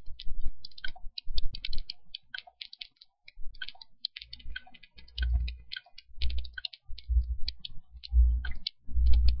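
Computer mouse clicking in quick, irregular runs of sharp clicks, with dull low thumps among them.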